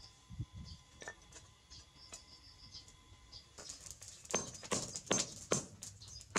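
Hand hammer striking a red-hot strip of brake-disc steel on a steel plate, starting about four seconds in, with sharp blows about two or three times a second. Before that there are only a few faint light ticks.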